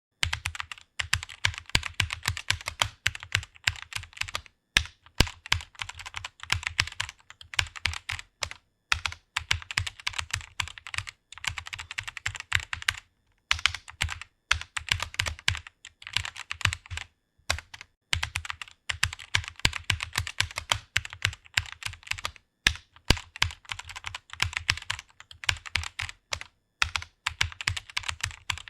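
Fast typing on a computer keyboard: a dense run of key clicks, broken by short pauses every few seconds.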